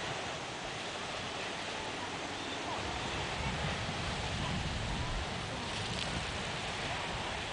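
Steady wash of Lake Erie's waves on the shore, mixed with wind. A few low gusts of wind hit the microphone in the middle.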